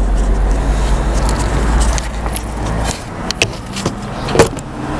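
Camera handling noise: wind buffeting the microphone as a low rumble that cuts off about three seconds in, then a few knocks and clicks from the camera being moved, the loudest near the end.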